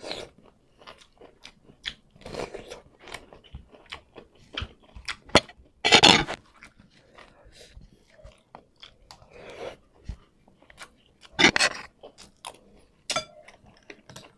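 Close-miked eating of bamboo shoots in coconut milk with corn and rice: chewing with many wet mouth clicks and smacks. A few louder, longer mouth sounds come about every few seconds, the loudest about six seconds in.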